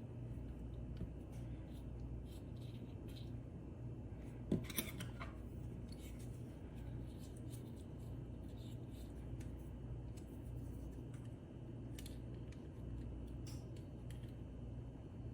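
Small clicks and ticks of hand-held parts and tools being handled, with one sharper click and a brief ring about four and a half seconds in, over a steady low hum.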